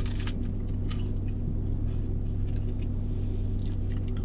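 Steady low hum of a car's idling engine heard inside the cabin, with a crunch of a bite into a fried orange and custard pie at the start and faint chewing after it.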